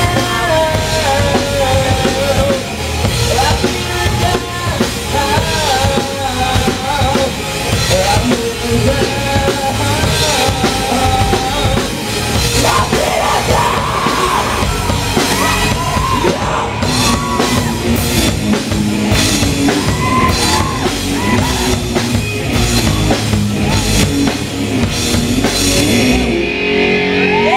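Live rock band playing loud: a drum kit with cymbals, electric guitars and a singer on a handheld microphone. The top end thins out in the last second or two.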